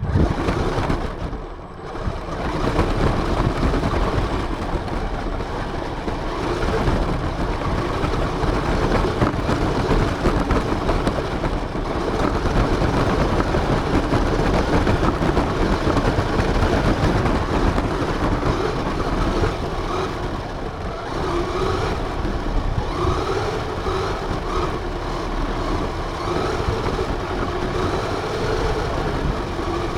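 RC car driving, heard through its onboard camera: a steady rumble of motor and wheels, with a wavering motor whine in the second half.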